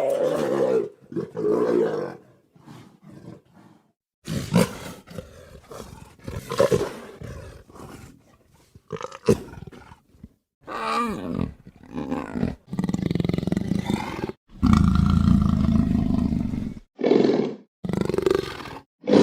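Big-cat roar and snarl sound effects, about a dozen separate calls played one after another with short gaps; the longest and loudest, about two seconds, comes about two-thirds of the way in.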